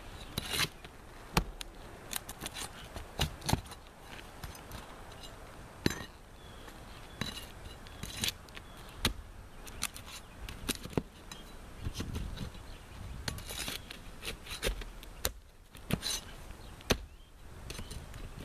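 Hand tools scraping and clicking against asphalt shingles as damaged shingles are cut free and worked loose. Irregular sharp clicks and gritty scrapes come every second or two.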